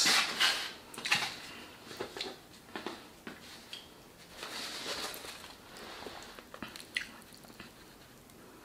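A crisp, fried birria taco and its paper wrapping being picked up and handled close to the microphone: a scatter of small, irregular crackles and rustles that thin out toward the end.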